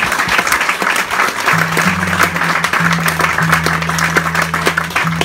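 Audience applauding with dense clapping. From about a second and a half in, a low steady tone sounds under the applause, breaking off briefly a few times.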